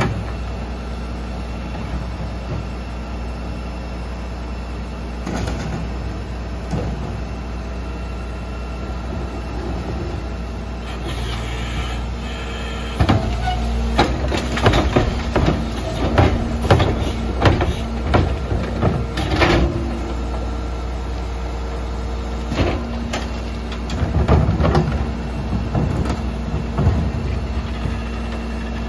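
Rear-loader garbage truck idling, with a steady hydraulic hum as the packer runs. In the middle, a run of knocks and clatter as plastic recycling bins are tipped and banged against the hopper and their contents fall in. Another shorter burst of clatter comes near the end.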